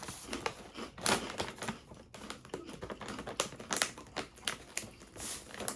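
Chewing a crunchy cheese rice cracker close to the microphone: an irregular run of sharp, crisp crunches.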